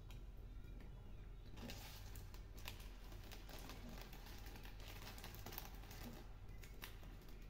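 Faint clicks and scrapes of a spoon in a pot of curd as it is eaten, a few scattered taps over a low steady hum.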